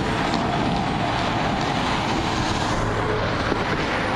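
Steady rolling noise of a horse-drawn tram's wheels running along street rails as it moves away, with the hoofbeats gone faint.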